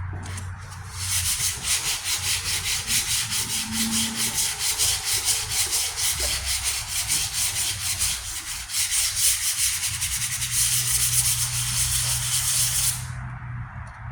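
Sandpaper rubbed back and forth by hand over body filler and primer on a steel tailgate, in even strokes about three a second. It levels the filler so its edge no longer shows through the paint.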